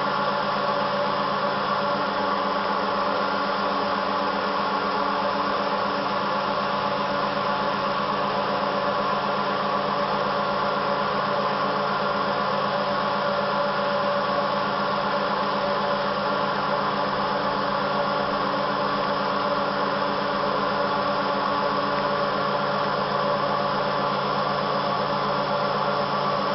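Twin Colombo 12 HP spindles of a 1997 Motionmaster CNC router running steadily while the bits route through a wooden sheet. The sound is a constant machine noise made of several fixed tones over a hiss.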